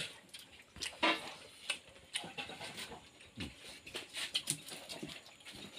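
Hand-eating sounds at a shared meal: scattered wet mouth smacks and chewing clicks, with fingers working food on steel plates. A short low sound falling in pitch comes about three and a half seconds in.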